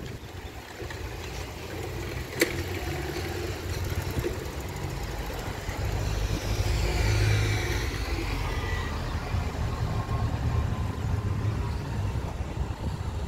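Boeing 737 MAX 8 airliner's CFM LEAP-1B jet engines on approach: a low rumble that builds to a peak about seven seconds in, with a high whine falling in pitch as the aircraft goes by. A sharp click about two seconds in.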